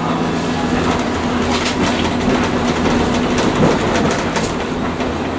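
Loud interior running noise of a Hiroshima Electric Railway 800-series streetcar, heard from on board: a steady low hum under rolling wheel noise, with scattered clicks of the wheels over the track.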